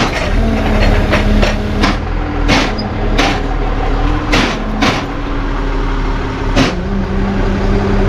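Tow truck engine idling steadily, with a series of sharp, irregular metallic clanks and knocks over it.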